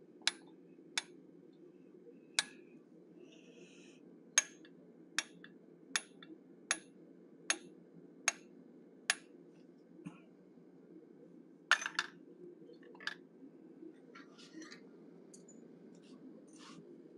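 Light hammer taps on a small punch, marking eyelashes into a forged steel bear head: about ten sharp, ringing clinks at a steady pace of roughly one a second. Then a pause, and two or three more strikes near the end.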